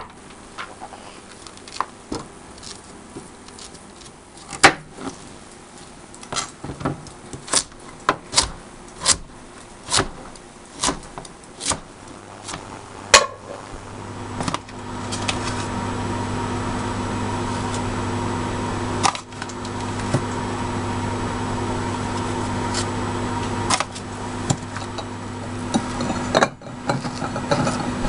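A knife chopping through a kabocha pumpkin, knocking on a plastic cutting board about once a second. It gives way to a steady electrical hum with bubbling from a saucepan of pumpkin pieces boiling on an induction hob.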